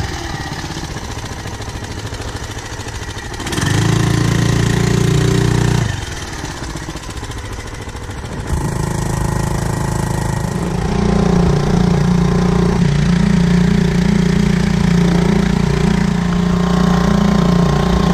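Honda BF2.3 single-cylinder four-stroke outboard motor running with a steady engine note. It is heard in several short pieces at changing levels, and runs steadiest and loudest over the last seven seconds or so.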